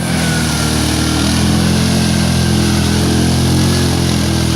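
Yamaha Grizzly 550 ATV's single-cylinder four-stroke engine running at a steady, even speed.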